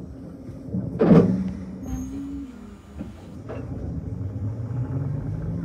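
Hakone Tozan Railway electric train heard from the driver's cab as it pulls away: a short burst of released air about a second in, typical of the brakes letting off. From about four seconds in the traction motors start a low whine that slowly rises in pitch as the train gathers speed.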